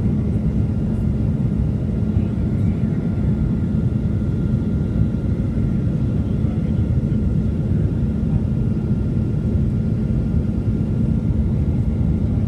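Cabin noise inside a Boeing 737-800 on approach, heard from a window seat over the wing: a steady rumble of airflow and its CFM56-7B turbofan engines, with a steady low hum and a faint thin higher whine running through it.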